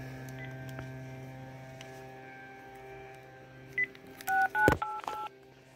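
A steady hum on a telephone line, which the caller takes for a noisy central office battery supply, fades out about three and a half seconds in. A short beep and then three quick two-tone dialling tones follow near the end, with a click among them.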